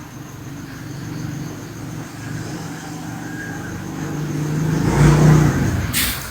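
A man snoring in his sleep: a rough, rumbling snore that grows louder over about five seconds, then a brief sharp snort near the end.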